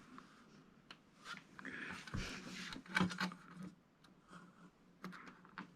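Faint handling noise of small TV parts being picked up and set down: light clicks, taps and rustling, with a short clatter of clicks about three seconds in.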